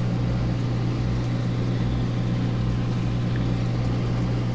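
Steady low hum at one constant pitch, with a faint rumble beneath, from running equipment.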